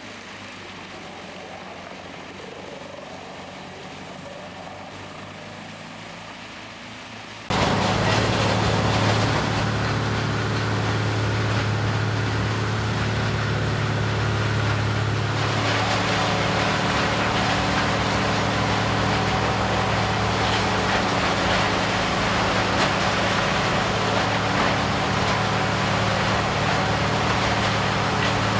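Large wood-processing machine's diesel engine running steadily under load, with the grinding and chipping noise of the machine. About seven seconds in, a quieter stretch of the same kind of machine sound jumps abruptly to a much louder, steady engine hum.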